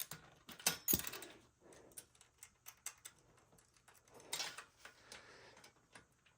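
Scattered light clicks, taps and metallic clinks of a hand tool and small metal parts being handled, with a brief rustling swish about four seconds in.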